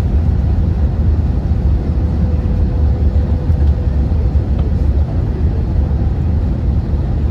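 Airliner cabin noise in flight: a steady, deep rumble of the engines and rushing air.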